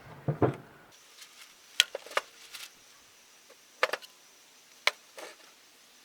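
A few sharp, isolated clicks and light taps about a second apart, as brake caliper parts are handled during greasing.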